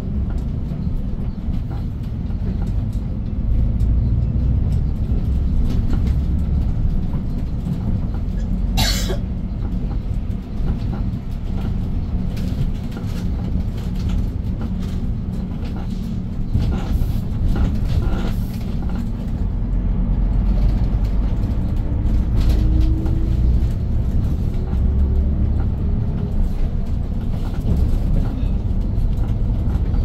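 Hyundai New Super Aerocity city bus heard from inside the cabin: its C6AF CNG engine and road noise make a steady low rumble that swells and eases as the bus moves through traffic, with cabin rattles. A brief sharp noise comes about nine seconds in, and a faint rising whine after about twenty seconds.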